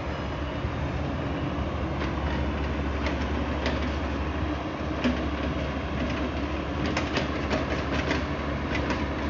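A large engine running steadily with a low rumble, with scattered metallic clanks and knocks, thickest near the end, as from heavy earthmoving machinery working.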